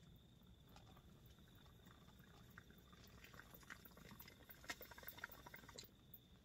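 Faint water bubbling in a bong as a cone is pulled: a few scattered pops at first, thickening into a quick run of bubbling in the middle that stops sharply near the end.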